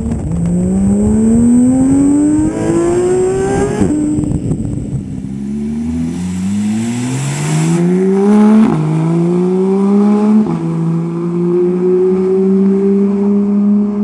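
Porsche 991 GT3's naturally aspirated flat-six, through a GMG sport exhaust, accelerating hard up through the gears. The pitch climbs steeply and drops at each of three quick upshifts, then holds high and nearly steady near the end.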